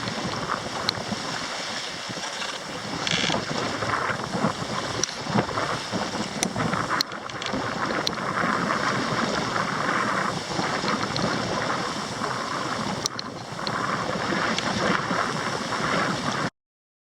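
Wind buffeting the microphone over the rush of water along a yacht's hull as it makes way, with a few scattered clicks; the sound cuts off abruptly near the end.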